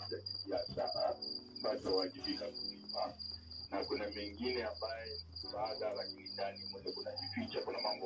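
A cricket chirping in a steady, high-pitched pulsing trill, over voices talking.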